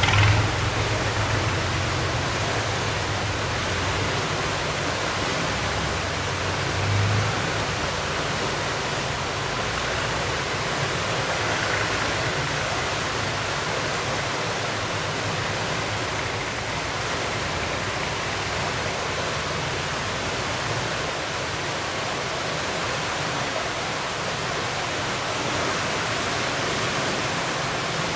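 Water rushing through a sluice gate in a steady, even rush. A boat engine's low hum sits under it for the first several seconds, then fades.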